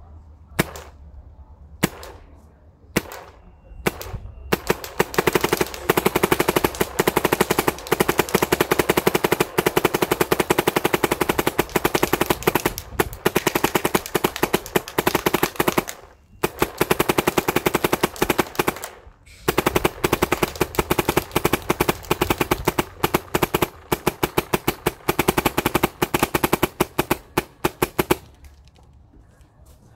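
Bob Long Insight electronic paintball marker with a Reflex Engine firing: a few single shots, then long rapid-fire strings with two short pauses, emptying a hopper, and stopping shortly before the end. The shooter reports a little bolt stick, which he expects while the new O-rings break in.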